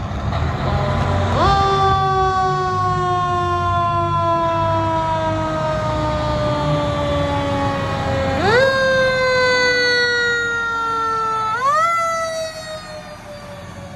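Siren on a 2021 Pierce Enforcer heavy rescue truck pulling out, sweeping up quickly and then falling slowly, three times, over the rumble of the truck's engine. The sound fades near the end as the truck moves off.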